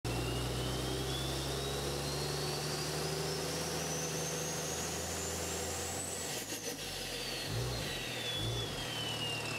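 Intro sound effect: a steady low engine-like hum under a thin high whistle that rises slowly for about six seconds, then falls away again. The hum drops out about six seconds in, and two soft low swells follow.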